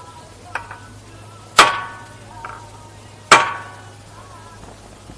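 Two hard hammer blows on metal, about a second and a half apart, each ringing briefly, with lighter taps before them: work at a stubborn engine mounting bolt on a Honda VFR750 being removed.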